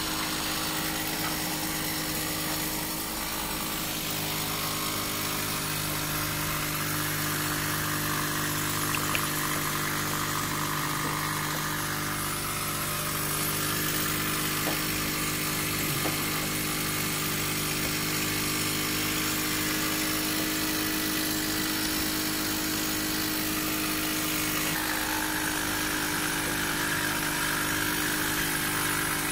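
A steady machine hum with an even hiss, unchanging throughout, with a few faint clicks.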